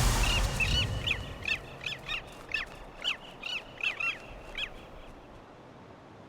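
A bird calling: a run of short, harsh, hooked calls, about two a second, that stops after about five seconds.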